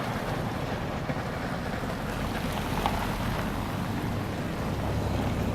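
Steady rushing wind noise with a low rumble underneath.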